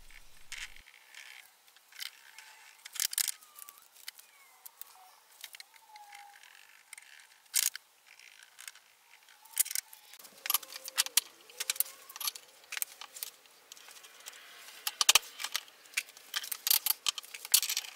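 Scattered sharp clicks and knocks of maple boards and metal clamps being handled during a glue-up. They come thicker over the last few seconds.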